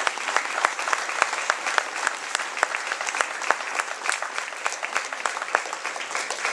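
A large audience applauding, many hands clapping in a dense, steady patter.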